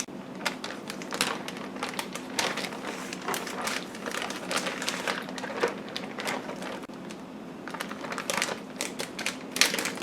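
Plastic zip-top bag crinkling and crackling in irregular bursts as a salmon fillet is handled into it with the marinade, easing off briefly about seven seconds in.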